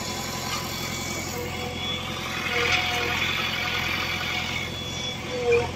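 Diesel engines of a JCB backhoe loader and a Massey Ferguson tractor running steadily, a continuous closely pulsing rumble with a thin whine over it. A short whine that bends in pitch and a brief swell in level come near the end.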